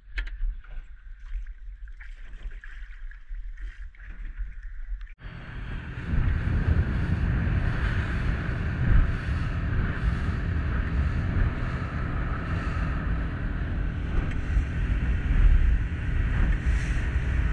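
A small motorboat sitting quietly with a low hum and a few light knocks. About five seconds in it gives way to the boat running under way: a loud, steady engine and water-rush noise with wind buffeting the microphone.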